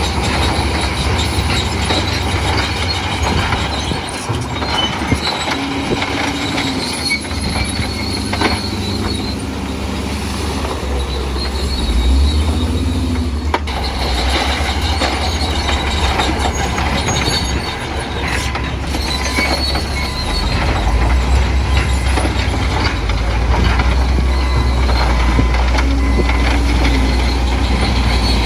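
Bulldozer working: heavy diesel engine rumble under the squealing and clanking of steel crawler tracks, the engine rising and pulling harder in the last third.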